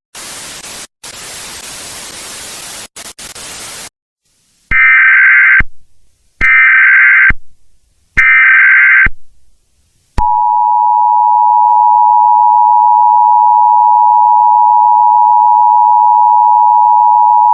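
Emergency Alert System broadcast interruption: a hiss of TV static with a few brief dropouts lasts about four seconds. Then come three shrill, screeching SAME data-header bursts about a second apart. From about ten seconds in, the steady two-tone EAS attention signal sounds loudly without a break.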